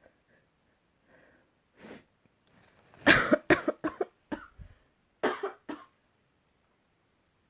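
A person sneezing: a faint intake of breath, then a sharp loud sneeze about three seconds in, a rapid run of shorter bursts right after it, and another burst a little over two seconds later.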